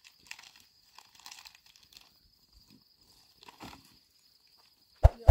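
Plastic snack wrapper crinkling and rustling in a child's hands, in short scattered bursts, over a faint steady high-pitched tone. A sharp knock about five seconds in is the loudest sound.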